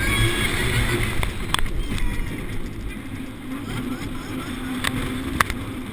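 Steel roller coaster train of Indiana Jones et le Temple du Péril running along its track: a steady low rumble of the wheels on the rails with wind rushing over the car-mounted microphone, and a few sharp clacks.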